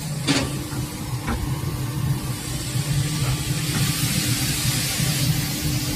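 Automatic pocket setting machine running with a steady low hum and a click just after the start; from about two seconds in until about five seconds a long hiss of air rises and then stops, from the machine's pneumatics.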